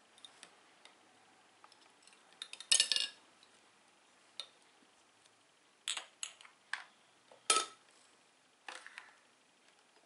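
Glass coffee-maker carafe and its plastic lid being handled on a table: scattered clinks and knocks. The loudest are a rattling cluster about three seconds in and a sharp clink with a brief ring about seven and a half seconds in.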